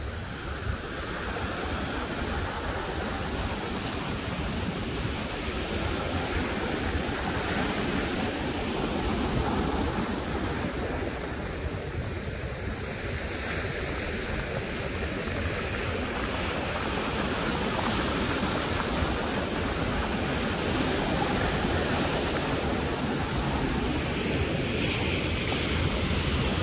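Ocean surf breaking and washing up a sand and cobble beach: a continuous wash of water that swells and eases with each set of waves.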